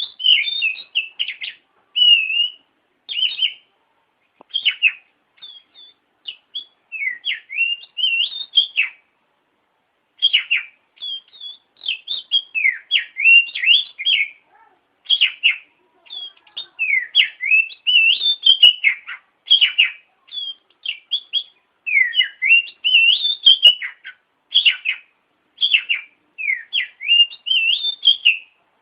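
Oriental magpie-robin singing a varied, loud song of sweet whistled phrases that slide up and down, mixed with quick chattering notes, delivered in bursts of a second or two with short pauses between.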